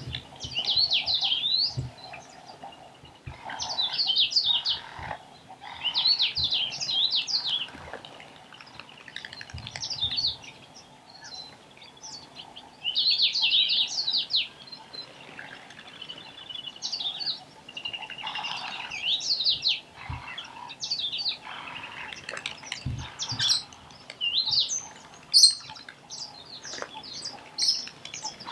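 Meyer's parrots calling: bursts of high-pitched, rapidly gliding squeaky notes, each burst a second or two long and repeated every few seconds, with shorter, sharper single calls near the end.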